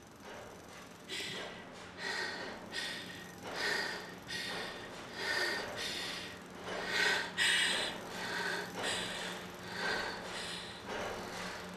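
A woman's ragged, gasping breaths in and out, about one a second, loudest a little past halfway.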